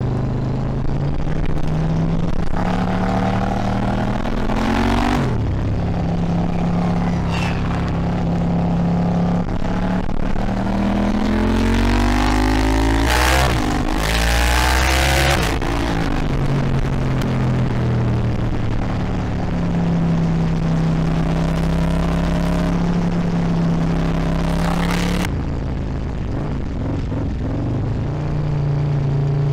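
Motorcycle engine on the move, rising in pitch as it accelerates with a sudden drop at a gear change, with heavy wind rush on the microphone at speed, loudest around the middle. Near the end it settles to a lower, steadier run as the bike slows.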